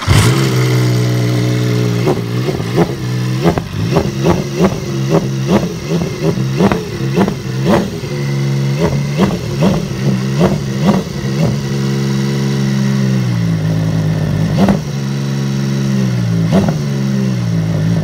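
Horex VR6 motorcycle's VR6 six-cylinder engine catching right at the start and going straight into a string of quick throttle blips, about two a second, each rising and falling back toward idle. About two-thirds in it settles to a lower, steady idle, with a few more blips near the end.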